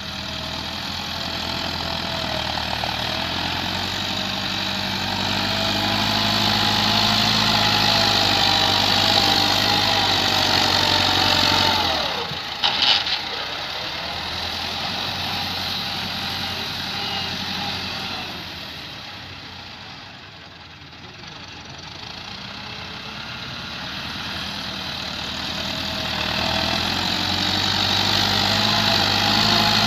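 Massey Ferguson tractor's diesel engine working hard under load as it strains to pull a heavily loaded trolley. The engine sound swells and its pitch climbs, breaks with a short crackle about thirteen seconds in, fades for a while, then builds up again near the end.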